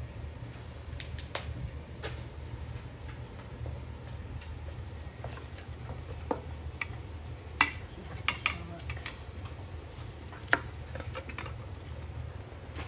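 Chef's knife cutting the top and bottom off a whole pineapple on a wooden cutting board: crunching through the tough rind, with a few sharp knocks of the blade and fruit on the board, the loudest about seven and a half and ten and a half seconds in, over a steady low hum.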